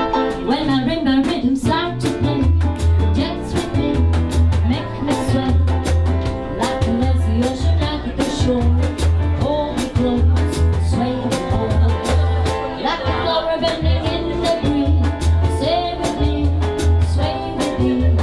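Live band playing a Latin-tinged dance number: a woman singing into a microphone over electric guitar, percussion and a steady, regular bass beat.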